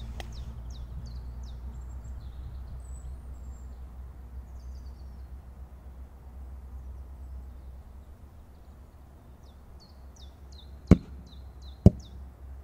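Five-bang firecracker going off in bog water: two sharp bangs about a second apart near the end, the first of its string of five.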